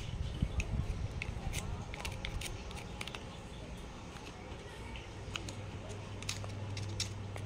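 Scattered small clicks and taps of a screwdriver and metal parts being handled on an opened trimmer motor housing. A low steady hum comes in about halfway through.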